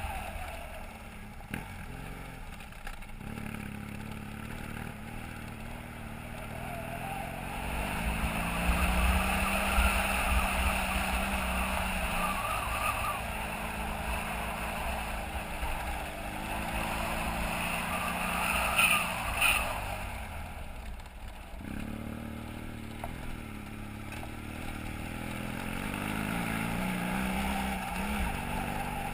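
BMW F800GS motorcycle's parallel-twin engine running under way, its revs rising and falling with the throttle, dropping sharply about three quarters of the way through.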